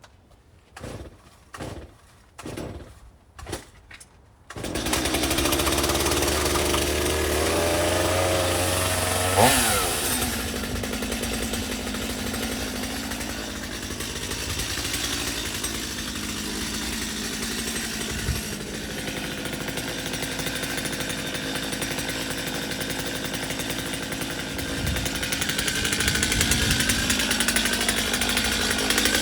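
Two-stroke chainsaw cold-started with the choke off: four quick pulls of the starter cord, then the engine catches about four seconds in and keeps running. It gives a brief burst of revs about nine seconds in, then runs on steadily, the revs rising somewhat near the end.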